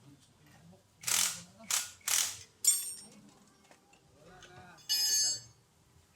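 Mechanic's hand tools working on metal suspension parts: three short rasping strokes about a second in, then ringing metallic clinks, the longest about five seconds in.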